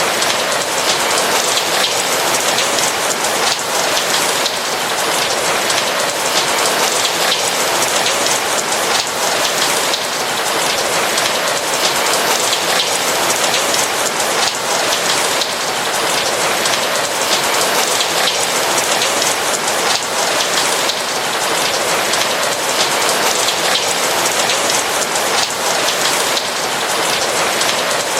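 Steady rain falling on a roof, a dense even patter of drops.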